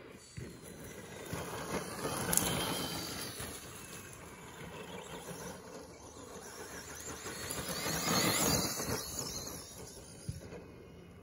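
ECX Amp 1/10-scale electric RC car driving across grass, its motor and gears whining under the tyre noise. It swells loudest as the car comes close about two seconds in and again about eight seconds in, fading between.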